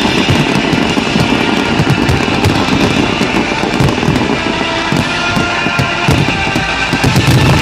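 A fireworks display firing in quick succession: a dense run of low booms and crackling bursts, with music playing alongside.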